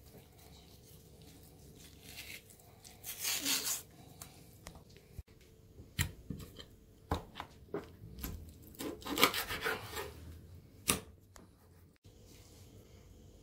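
Raw sole being skinned and handled by hand: a rasping tear of fish skin being pulled off, then scattered knocks and scrapes of fish, plate and knife on a wooden cutting board.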